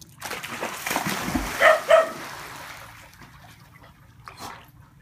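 A dog leaps into a swimming pool with a splash, and the rush of water fades over the next couple of seconds. Partway through, a dog barks twice in quick succession, the loudest sounds here.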